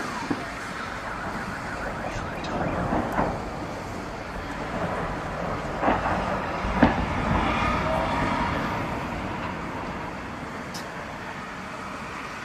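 Explosions from Uragan multiple-rocket-launcher shelling, with several sharp blasts and the loudest deep one about seven seconds in, over a steady din of wailing alarms.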